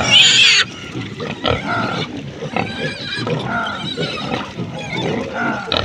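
Pigs squealing and grunting: a loud, high-pitched squeal in the first half second, then many overlapping grunts from several pigs.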